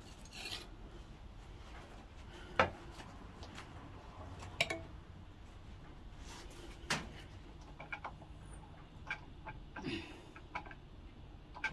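Scattered clicks and light metallic knocks from a Gottlieb pinball score reel unit being handled, the sharpest click about two and a half seconds in.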